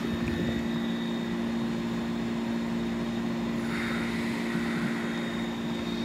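1960s Westinghouse Mobilaire 7000 BTU air conditioner running with its flat-top compressor on: a steady hum under the even rush of air from the fan.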